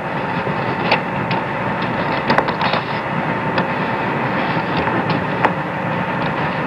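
Steady radio hiss with scattered crackles and clicks on the Apollo 11 air-to-ground voice link from the lunar surface.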